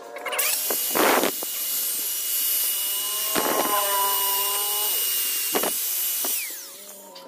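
Angle grinder with a thin cutting disc switched on about half a second in and running at a steady high whine for about six seconds, with a few brief louder bursts along the way. Near the end it is switched off and winds down with a falling whine.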